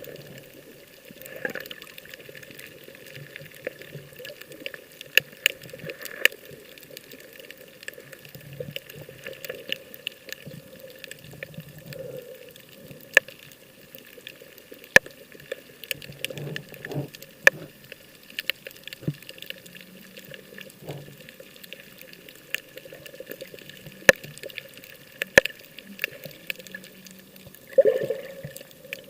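Water sloshing and splashing, with many scattered sharp clicks and knocks.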